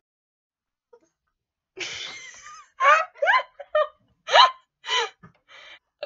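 A sudden shout of "boo" about two seconds in, then a girl's high-pitched laughing in short, loud bursts that swoop up and down in pitch.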